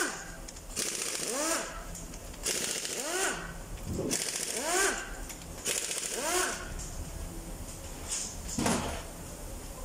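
A power wrench run in short trigger bursts on bolts at the top of a stripped Toyota 2GR V6 engine: about five bursts roughly every second and a half, each spinning up and back down in pitch with a hiss, then a single sharp knock near the end.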